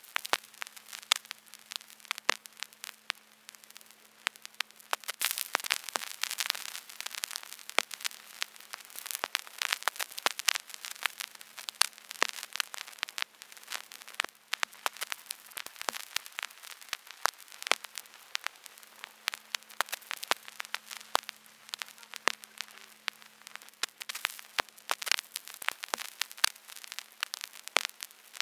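Vinyl record surface noise: dense, irregular crackles and pops over a soft hiss, with a faint low hum at times.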